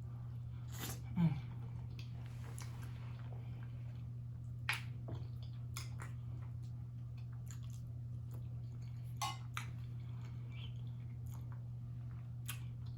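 A man chewing food close to the microphone, with a few short, wet mouth clicks and smacks scattered through. A steady low hum runs underneath.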